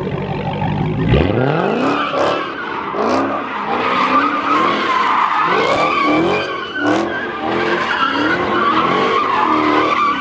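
Car engine revving hard, its pitch climbing again and again, over a steady squeal of spinning tyres.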